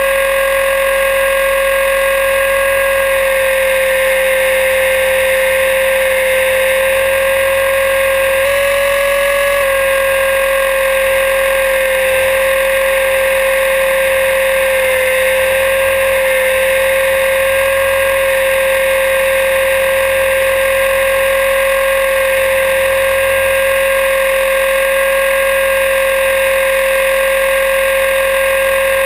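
Align T-Rex 500E electric RC helicopter in a low hover, heard from a camera mounted on its own frame: a steady, loud whine from the brushless motor and drive gears over the rush of the rotors, holding nearly one pitch with a slight wobble about a third of the way through.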